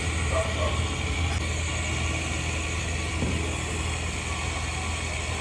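Steady low mechanical hum, with faint voices in the background.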